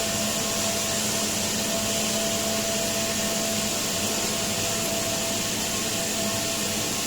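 Industrial brush washing machine running steadily: an even motor hum with a constant whine and a hiss, no change in speed.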